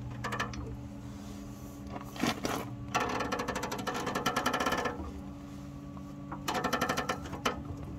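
Arc welding on a broken truck bumper: four short bursts of arc crackle, the longest about two seconds, over a steady low hum.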